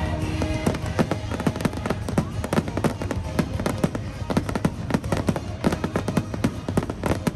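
Aerial fireworks going off in a rapid, irregular string of sharp bangs and crackles, several a second, with the show's music playing underneath.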